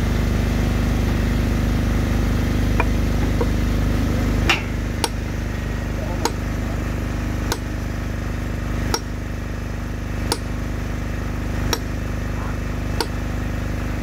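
An engine runs steadily throughout. About four and a half seconds in it drops in level, and sharp hammer blows begin, evenly spaced at roughly one every 1.3 seconds, eight in all.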